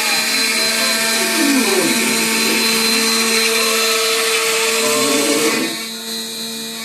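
Large CNC router cutting MDF: the spindle runs with a steady whine over a dense cutting hiss, while the axis stepper motors rise and fall in pitch as the gantry moves. A little over five seconds in the hiss drops away, leaving the steady spindle tones.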